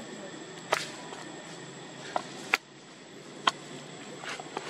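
A handful of sharp, short clicks at uneven intervals over a steady background hiss.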